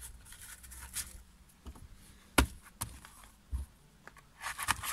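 Cardboard firework boxes being handled and set down, giving a few sharp knocks and taps, the loudest about two and a half seconds in, with light rustling near the end.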